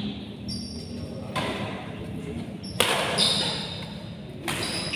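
Badminton rackets striking the shuttlecock three times during a rally, about a second and a half apart, with sport shoes squeaking on the court floor between hits, in an echoing hall.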